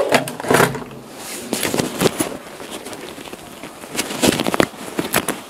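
Microphone handling noise: irregular crackles, rubbing and knocks close to a microphone that has slipped down, with louder clusters of knocks about half a second in, around two seconds in and around four seconds in.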